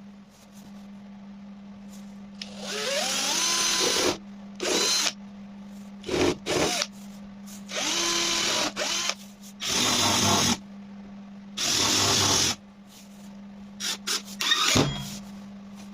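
Electric drill run in about seven trigger bursts of half a second to a second and a half, several of them rising in pitch as the motor spins up and then holding steady. A steady low hum runs underneath.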